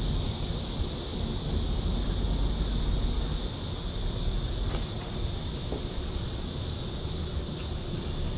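Insects, likely crickets, chirping in short high trills that repeat about once a second, over a steady low rumble.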